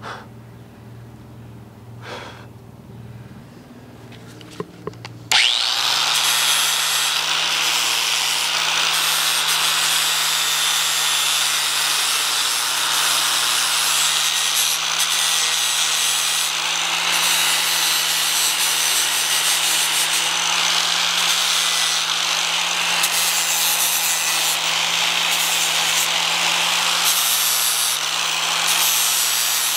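Angle grinder with a flap disc grinding rust off an old ball peen hammer head held in a vise, running steadily at a constant pitch. It cuts in abruptly about five seconds in, after a few quieter seconds with a couple of faint clicks.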